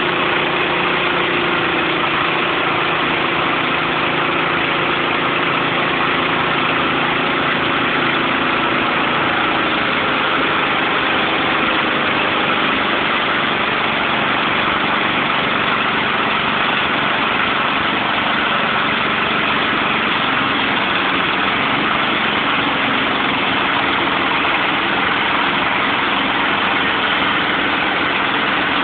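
Band sawmill's engine running steadily at a constant speed.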